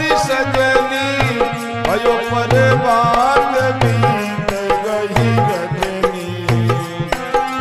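Devotional bhajan music: a hand drum beating a steady rhythm beneath a melody with sliding notes.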